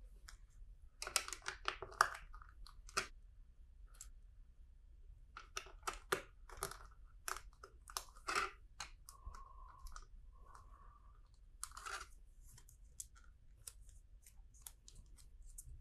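Plastic LEGO bricks being handled and pressed together: scattered sharp clicks and short rattling clusters.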